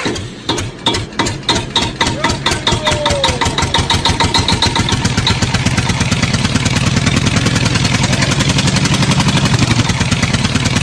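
An engine catching and starting up. Its slow beats quicken over the first few seconds into a fast, steady running rhythm.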